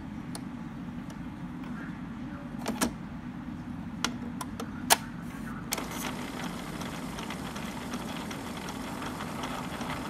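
Epson L385 inkjet printer beginning a head-cleaning cycle: a few sharp clicks about three to six seconds in, then its motor and ink pump run steadily with faint regular ticking, over a steady low hum.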